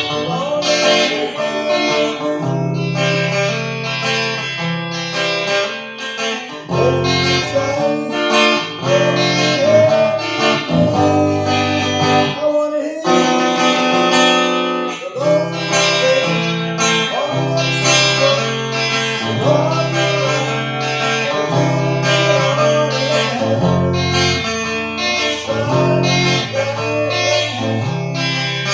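Guitar music, plucked and strummed, over a changing bass line.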